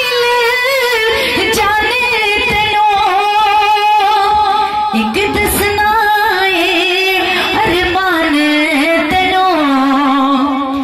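A woman singing a naat, a devotional poem in praise of the Prophet, in long drawn-out notes that glide and waver.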